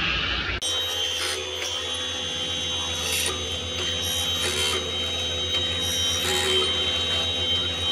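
A woodworking machine runs with a steady high whine and hum while its cutter rasps into a hardwood sofa-leg blank in repeated short passes. A different, even machine noise cuts off abruptly about half a second in.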